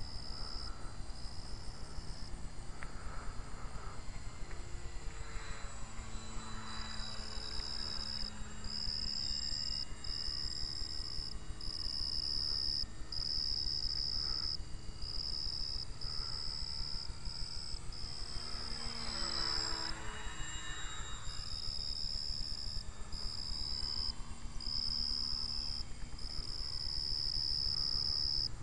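Crickets chirp steadily in a high, pulsing trill throughout. Over it, a radio-controlled P-40 model plane's motor and propeller whine faintly, rising and falling in pitch as it passes by twice, about five seconds in and again near twenty seconds.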